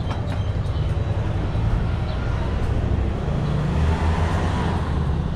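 A vehicle engine running with a steady low rumble; its pitch lifts and strengthens about three seconds in.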